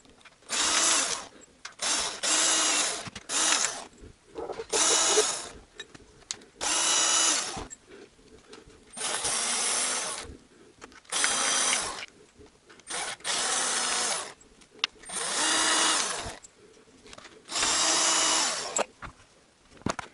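Cordless screwdriver with a socket extension running in about a dozen short bursts of around a second each, with pauses between, as it spins out the CVT oil pan bolts of a 2001 Honda Civic one after another.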